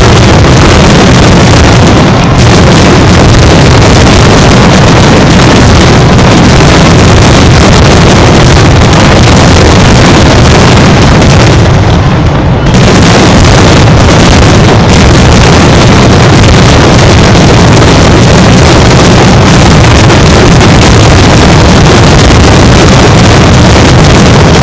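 Rapid-fire fireworks barrage, the bursts coming so fast that they merge into one continuous, heavy rumble that overloads the recording. There is a brief lull about halfway through.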